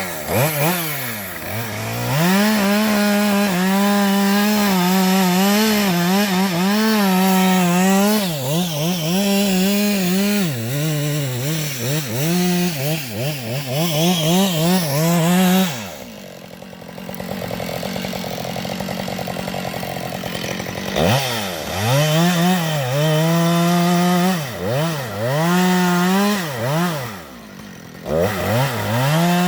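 Two-stroke chainsaw engine held at high revs for long stretches, its pitch repeatedly dipping and climbing back up. It drops to a steady idle for about five seconds around the middle, then revs up hard again.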